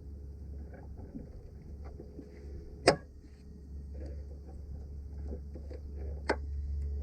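Hand tools and parts being handled during a truck battery-cable repair: scattered small clicks and two sharp knocks, the first and loudest about three seconds in, the second about three seconds later, over a steady low hum.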